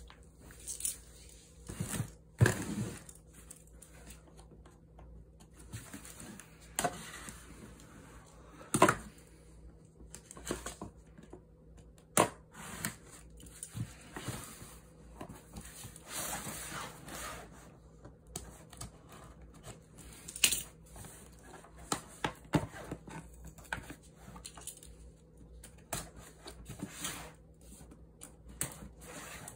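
Cardboard shipping box being handled and opened: scattered sharp knocks and taps of the box, with scissors cutting and tearing through the packing tape and cardboard rustling.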